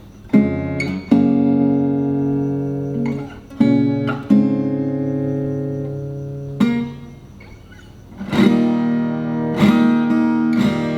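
Maton steel-string acoustic guitar with chords struck about seven times, each left to ring out and fade before the next.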